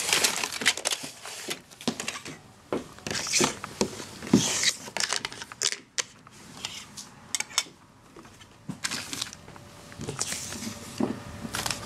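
Plastic packaging rustling and crinkling, with scattered sharp clicks of hard plastic toy parts being handled, as a toy train is taken out of its box.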